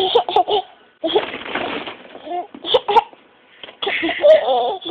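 A baby babbling in short, high-pitched vocal bursts close to the microphone, with a couple of sharp knocks about three seconds in.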